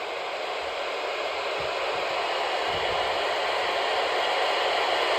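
Radio static: a steady hiss from a weather radio receiver with no broadcast audio, slowly growing louder.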